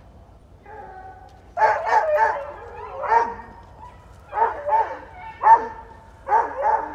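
Airedale terriers barking and yipping in short, high runs of calls, starting about a second and a half in.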